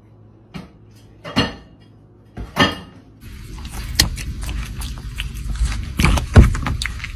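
Three short clatters of dishes being knocked about in a kitchen sink by a Dalmatian with its head in the sink. Then a steady car-cabin rumble with quick clicks and knocks as a Chihuahua gnaws a hard chew toy; the loudest knock comes near the end.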